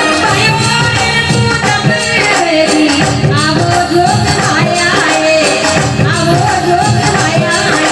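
Rajasthani devotional folk song performed live: a woman singing a bhajan over instrumental accompaniment with steady percussion.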